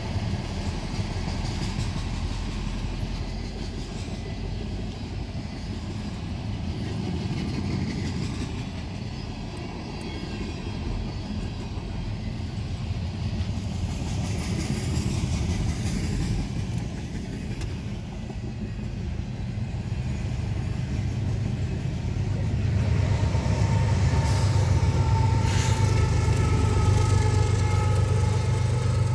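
Freight train cars rolling past a grade crossing: a steady rumble of wheels on rail, heard from inside a car. About 23 seconds in, the rumble grows louder and a steady whine joins it as a GE ES44AC diesel locomotive runs alongside.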